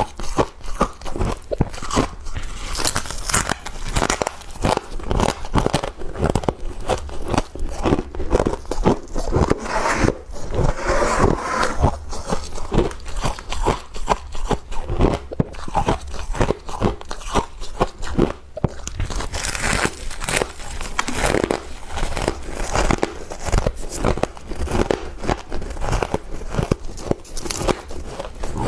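Freezer frost being bitten and chewed: a dense run of sharp crunches, several a second.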